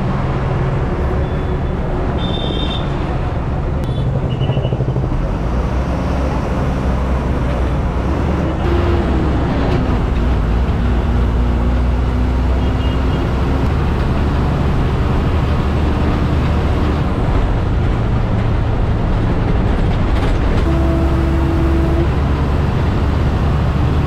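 Inside a moving city bus: the engine running under load with steady road noise as the bus pulls away from a stop and drives on. The engine note shifts in pitch and grows a little louder about nine seconds in.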